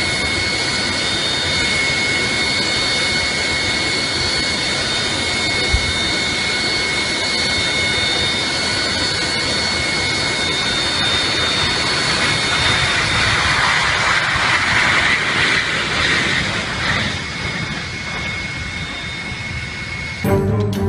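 Jet airliner's engines running loud, a steady rushing roar with a high whine held on several steady tones; the rush swells a little about two-thirds through.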